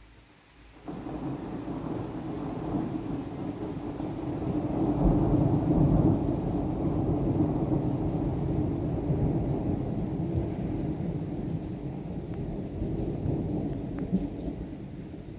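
A long roll of thunder that starts suddenly about a second in, is loudest around the middle, and rumbles on, slowly fading toward the end.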